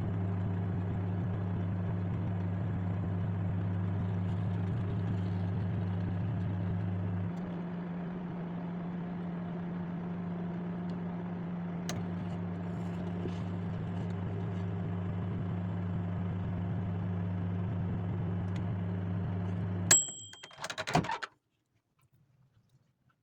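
Microwave oven running with a steady low electrical hum, which lightens about seven seconds in and stops about twenty seconds in with a short high beep, followed by a quick run of clicks and rattles.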